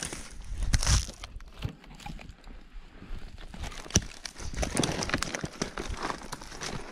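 Footsteps crunching through forest undergrowth, with dry twigs and branches crackling and snapping and brush rustling against the walker. There are heavier thumps about a second in and a sharp snap about four seconds in.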